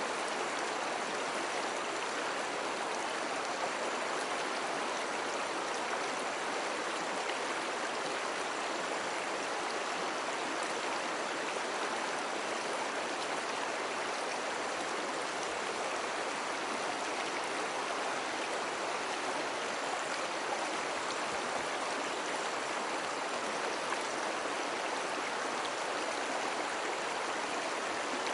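Mountain stream flowing, a steady rushing of water.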